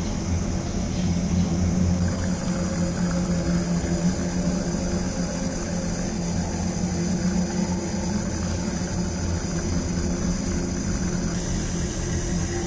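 Steady low hum with the hiss of a tap running into a stainless steel sink.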